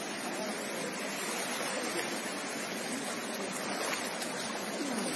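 The flooded Meenachil River rushing steadily as fast brown floodwater pours over its banks and across a road.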